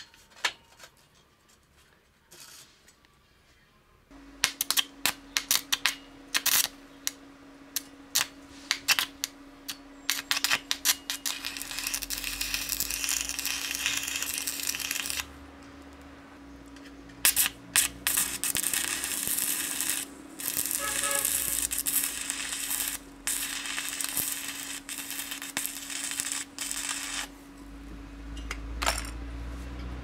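Stick arc welding on a steel rail. After a few quiet seconds come scattered sharp crackles as the arc is struck, then several runs of steady crackling sizzle a few seconds long, with short breaks between them. A steady hum runs beneath the welding.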